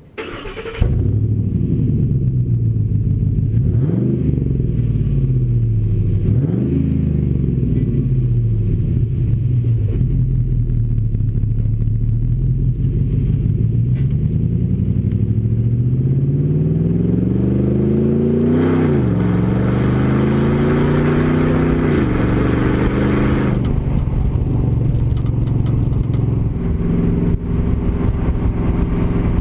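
Ford F-150 Raptor's 6.2L V8 through a B&B Performance catback exhaust, heard right at the twin tailpipes as the truck drives. The engine note climbs and then drops sharply several times as it accelerates through the gears, and settles into a steadier, lower drone for the last few seconds.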